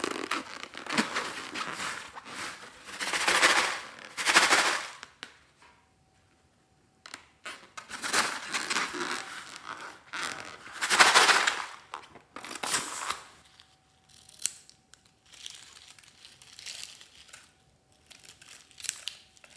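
Slime and balloon being handled, crackling and crinkling in several loud bursts with quieter stretches between.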